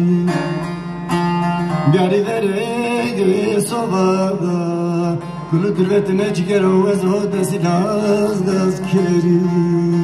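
Bağlama (long-necked Turkish saz) played live through a PA, plucking a Middle Eastern melody over a steady low drone.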